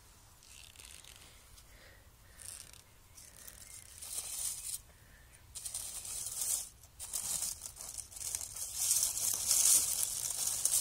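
Dry oak leaves rustling and crackling as a gloved hand shifts them about. Faint at first, then louder and more continuous from about four seconds in.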